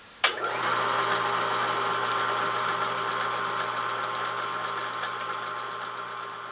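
Electric drive motor of a Royal Chef tabletop washing machine switched on with a click, spinning up with a short rising whine and then running steadily with a mechanical hum as it turns the V-belt and tensioner pulley.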